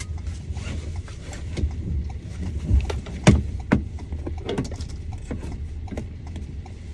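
Inside a car: a steady low rumble, with scattered clicks and knocks at irregular moments. The loudest knock comes a little past the middle.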